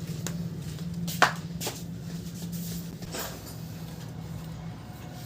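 A few sharp clicks and knocks of the metal magneto cover being handled and set onto a motorcycle engine's crankcase, the loudest about a second in, over a steady low hum.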